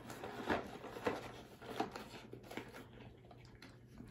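A dog working at a cardboard tissue box with its mouth and paws: faint, irregular taps and scuffs of cardboard, fewer after about halfway through.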